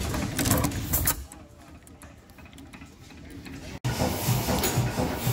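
Antique stationary gas engines running with a mechanical clatter. After about a second the sound drops off, and near the four-second mark it cuts abruptly to a different old engine with a low, regular thumping.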